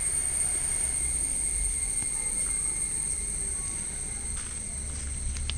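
Insects trilling steadily in the garden, two unbroken high-pitched tones, over a steady low rumble.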